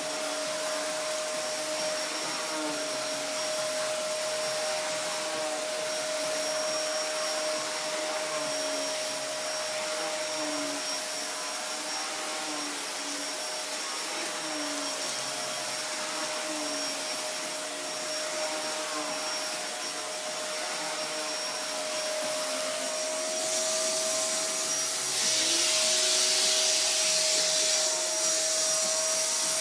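Wertheim 4412 vacuum cleaner running with a power head from a Wertheim 4430. Its metal beater-bar brushroll is pushed over carpet, over a steady motor whine, and the sound gets louder and hissier near the end.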